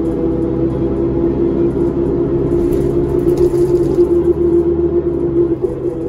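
Cummins ISL diesel engine and driveline of a 2005 New Flyer D40LF city bus under way, heard inside the rear of the cabin: a steady hum with a held whine over a low rumble. The low rumble eases off near the end.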